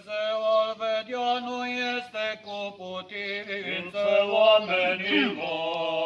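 Men's voices chanting an Orthodox memorial hymn in Romanian, on long held notes that slide from one pitch to the next.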